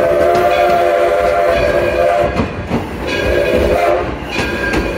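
Steam locomotive's chime whistle sounding several notes together: one long blast, a shorter blast about three seconds in, and a third starting near the end. Under it are the low rumble and clicking of the moving train.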